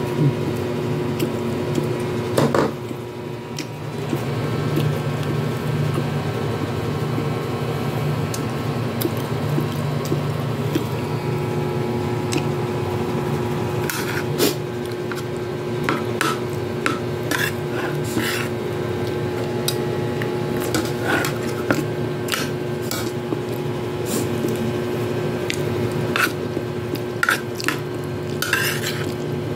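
A metal spoon clinking and scraping against a plate of rice and vegetables, in short irregular clicks that come more often in the second half, over a steady low hum.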